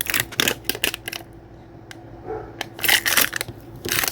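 Plastic toy packaging being handled, crinkling and clicking in two spells, the second, from about two and a half seconds in, the louder.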